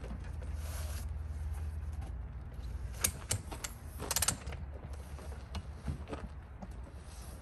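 Telescoping metal ladder of a rooftop tent being pulled out and extended, its sections clicking into place: a few sharp clicks about three seconds in, then a quick run of clicks a second later. Near the start there is a soft rustle as the tent is opened.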